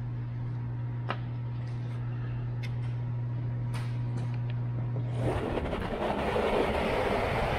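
Electric radiator cooling fan run off a 12-volt power-tool battery: a few light clicks as the wire terminals are touched to the battery, then about five seconds in the fan starts and runs with a steady rush of air.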